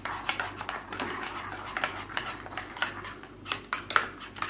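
Metal spoon stirring a thick yogurt and spice marinade in a ceramic bowl, clinking and scraping against the bowl's sides in quick, irregular strokes as the tandoori masala is mixed.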